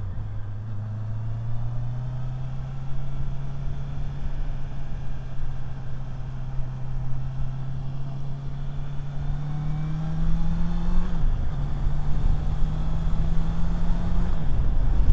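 Motorcycle engine pulling in gear, its pitch climbing slowly, then dropping sharply twice near the end as the rider shifts up. Wind and road rumble build as the speed rises.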